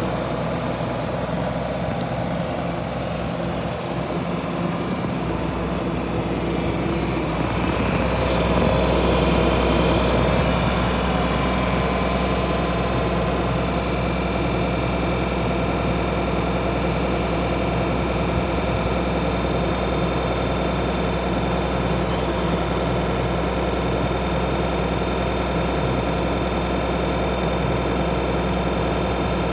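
John Deere row-crop tractor's diesel engine idling steadily, a little louder from about eight seconds in.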